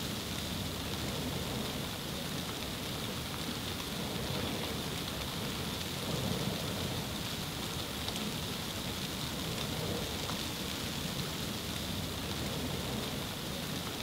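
Steady, even hiss of precipitation, heard as rain-like noise with no distinct drops or gusts standing out.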